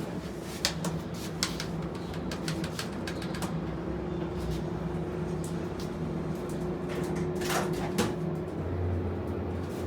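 Inside a hydraulic elevator car: a steady hum from the cab's ventilation fan, with scattered clicks and knocks from the doors and car equipment and a louder swish about seven and a half seconds in. About a second before the end a deeper hum comes in.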